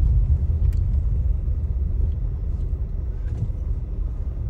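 Steady low rumble of a car, with a few faint clicks over it.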